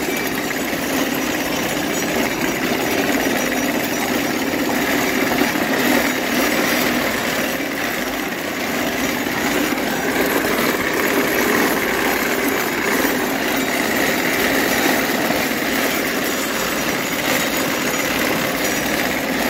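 Horse-drawn sickle-bar mowing machine cutting grass: a loud, steady mechanical clatter from the reciprocating cutter knife and its gearing as the team pulls it along.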